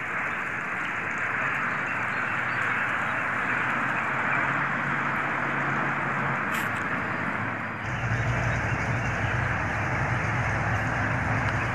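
Car engine running steadily. A short click comes about six and a half seconds in, and a deeper, louder low sound joins about eight seconds in and stays.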